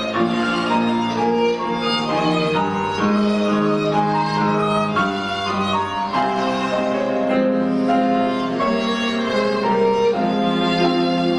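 Instrumental music, a violin carrying a melody of sustained notes over string and piano accompaniment, with no voice.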